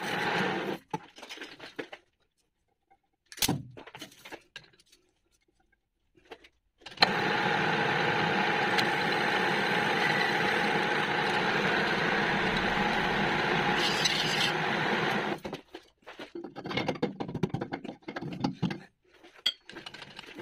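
Metal lathe cutting a metal flange: a steady run of machining noise from the turning spindle and the tool in the cut. It breaks off within the first second, then runs steadily again for about eight seconds before stopping. After that come scattered light clinks and knocks of metal parts being handled.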